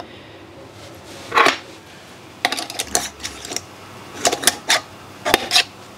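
Metal canning lid set on a glass mason jar, then a metal screw band turned down onto the jar's threads: one short clink about a second and a half in, followed by several bursts of short scraping and clicking as the band is twisted tight.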